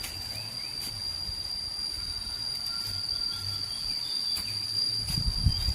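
An insect in the forest gives one long, steady, high-pitched trill without a break. Low knocks and rumbles sit underneath and grow louder near the end.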